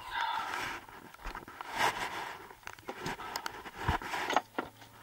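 Footsteps crunching in snow with rustling, in irregular bursts, and a few sharp clicks.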